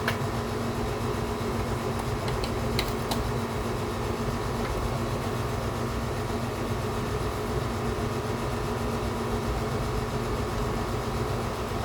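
Steady mechanical hum with a low rumble, with a few faint clicks in the first three seconds.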